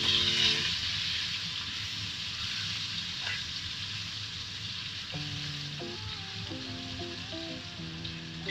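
Whole pompano frying in hot oil in a pan: a steady sizzle. Soft background music comes in again about five seconds in.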